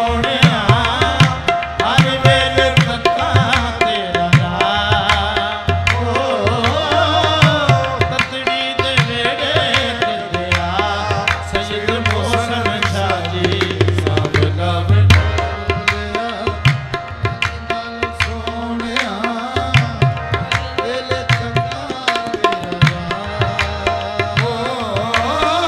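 Qawwali music: harmonium melody over a steady tabla rhythm with frequent sharp drum strokes, and a low sustained note underneath for several seconds in the middle.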